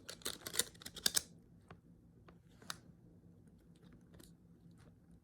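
Small plastic clicks and scraping from a Samsung phone's battery and back cover being pressed and fiddled with, a quick flurry in the first second then a few scattered clicks: the part is not snapping into place.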